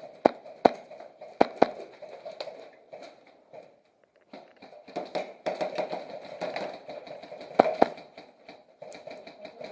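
Airsoft guns firing single sharp shots, four in the first two seconds and two more in quick succession near the eighth second, over a constant noisy background.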